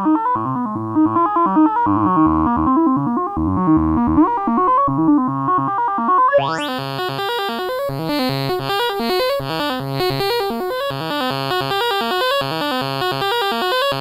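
Make Noise MATHS function generator cycling as an oscillator with a sawtooth-like wave, playing a stepped sequence of short notes through a filter and reverb. About six and a half seconds in, a quick rising sweep leads into a much brighter tone as its end-of-cycle pulse wave is turned up in the mix.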